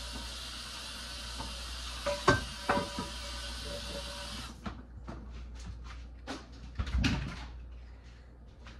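Kitchen sounds: a steady hiss with a few sharp, ringing clinks, the hiss cutting off abruptly about halfway through; then scattered light knocks and clatter, with a louder thump a couple of seconds before the end.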